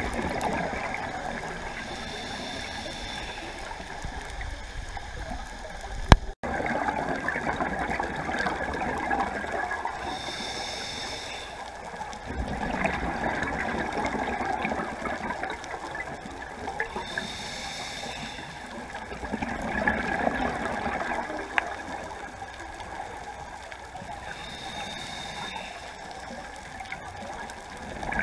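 Scuba breathing heard underwater through a regulator: four hissing inhales about seven seconds apart, each followed by a gurgling rush of exhaled bubbles. There is a single sharp click about six seconds in.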